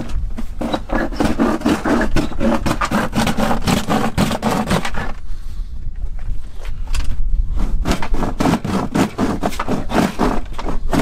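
Hand saw cutting through the plastic shell of an old cooler in quick back-and-forth strokes, about three a second, with a short pause about five seconds in.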